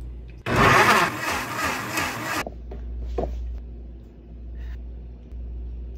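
Glass countertop blender running for about two seconds, pureeing a chunky jerk marinade of peppers, scallions and spices; it starts abruptly about half a second in and cuts off sharply.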